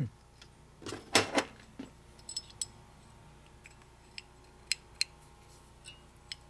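Small metal parts of a Harley-Davidson 4-speed transmission clinking and clicking as they are handled and moved: a louder clatter about a second in, then a few light, sharp ticks.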